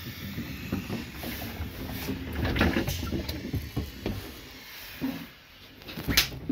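A train's automatic sliding interior door running on its mechanism as someone passes through, with footsteps and rattles. There is a sharp knock about six seconds in.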